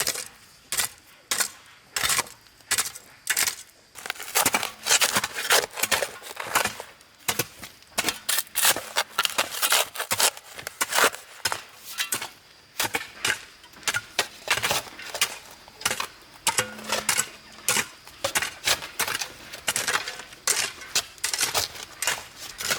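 A tool striking bamboo again and again in quick, uneven sharp knocks, about two to three a second.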